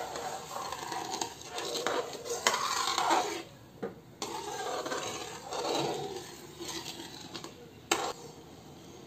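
Metal ladle stirring wet semolina in a metal kadhai, scraping and clinking against the pan, with a brief pause about four seconds in and a sharper clink near the end.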